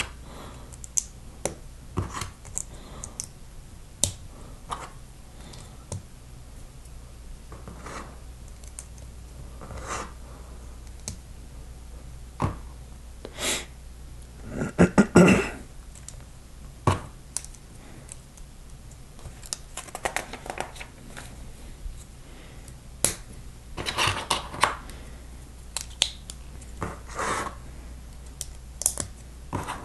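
Plastic Lego bricks being handled and pressed together: scattered sharp clicks and taps as pieces are picked up and snapped onto each other, with a few louder stretches of clattering about halfway through and again near the end.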